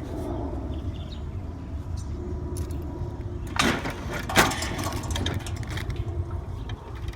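Chain-drive motor running with a steady low hum under tension on its chain, with two loud knocks a little past halfway. It is not stopping at its magnet limit switch.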